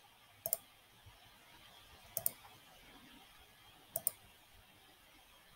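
Three quick double clicks of a computer mouse, about a second and a half to two seconds apart, faint over quiet room tone.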